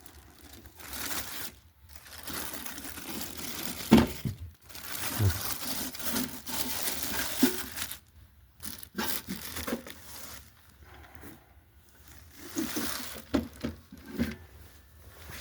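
Packaging crinkling and rustling in irregular stretches as a hot air station is unpacked by hand, with a few sharp knocks, the loudest about four seconds in.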